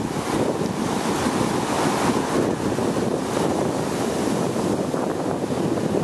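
Sea surf breaking and washing up a sandy beach in a steady, continuous rush, with wind buffeting the microphone.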